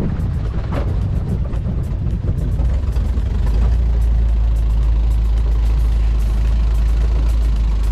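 Long-tail boat's engine running, a loud steady low rumble that grows stronger and more even about three and a half seconds in.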